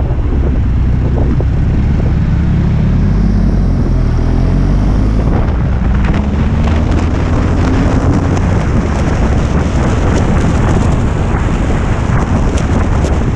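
Motorcycle engine rising in pitch as the bike accelerates out of a bend, under heavy wind buffeting on the mounted camera's microphone.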